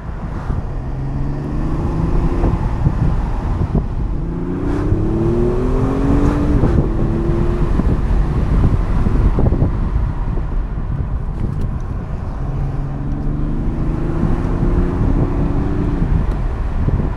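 Car engine pulling hard in Sport Plus mode over steady road and wind noise, three times: each time the engine note climbs and then drops as the driver shifts or lifts off.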